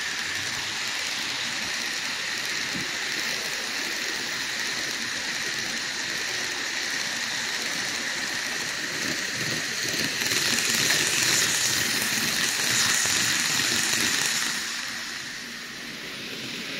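N gauge model train, a JNR 485-series limited express, running along the track with a steady hiss-like rolling noise of wheels and motor. It grows louder about ten seconds in as the train passes close, then fades near the end.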